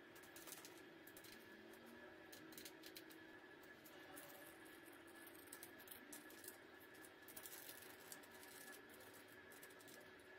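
Faint, irregular small clicks and taps of a metal clamp bracket, screws and a screwdriver being handled while an LED spotlight is fitted to a scooter handlebar.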